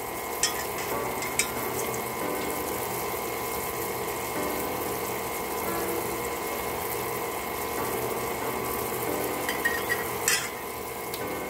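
KitchenAid stand mixer's motor running steadily, its flat-beater paddle turning through soft farmer's cheese in the steel bowl, with a few short clicks.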